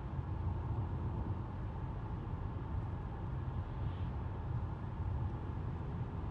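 Steady low rumble of road and engine noise inside a car's cabin as it drives along a highway.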